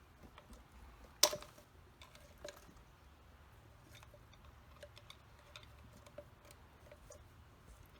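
Plastic clicks and light taps from the retaining tabs of a fuel pump module being pried loose. One sharp snap comes about a second in, then scattered faint ticks.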